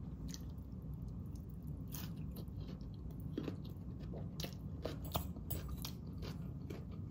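A person chewing a mouthful of raw vegetable salad close to the microphone, with soft, irregular crunches.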